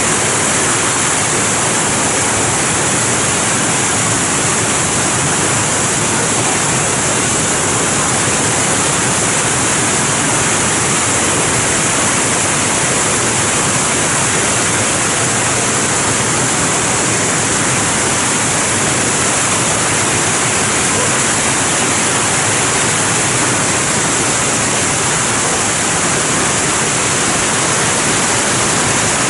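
Water from a fountain waterfall pouring down and splashing, a steady loud rush with no breaks.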